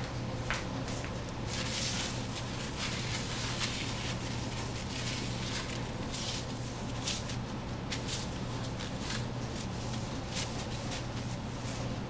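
A cloth wiping a glossy gas stovetop: repeated rubbing, swishing strokes with a few light clicks, over a steady low hum.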